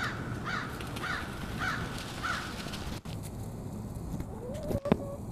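Five harsh bird caws, each falling in pitch, about half a second apart in the first half. Near the end a short rising tone is followed by a single sharp click, the loudest sound.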